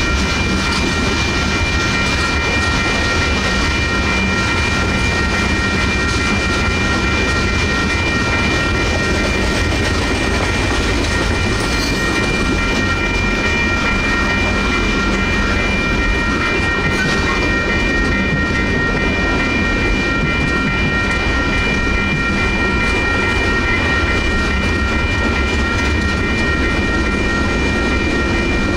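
Freight cars of a Union Pacific manifest train rolling past steadily, the wheels rumbling and clacking over the rail joints. The grade-crossing bells ring without a break over the train noise, showing the crossing is still active.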